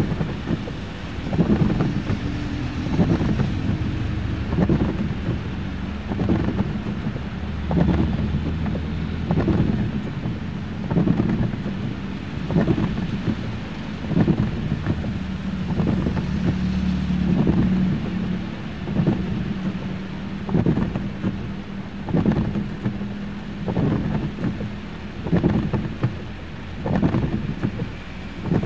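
Heavy rain, with gusty wind buffeting the microphone in repeated low thumps about once a second, and a vehicle engine running steadily underneath.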